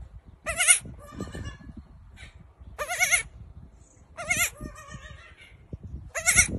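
A baby goat kid bleating four times in short, quavering high bleats, with fainter bleats after the first and third.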